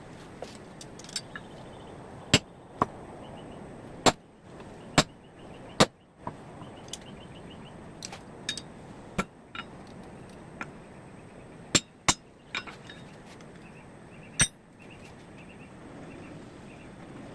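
Hammer striking hot steel on an anvil, forging a carbon-steel cut flooring nail into a hook. About a dozen irregularly spaced ringing blows, some close together in pairs, over a steady background noise.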